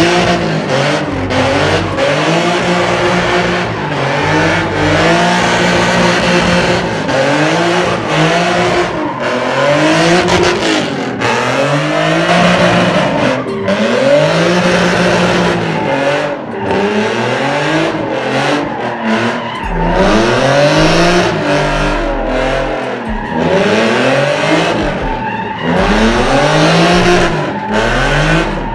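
Drift car's engine revving hard, its pitch rising and falling over and over about every one and a half to two seconds, with tyres squealing as the car slides.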